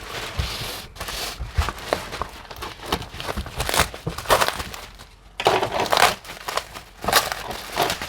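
Plastic packaging crinkling and rustling in irregular bursts as a sealed package is unwrapped by hand, with a short lull about five seconds in.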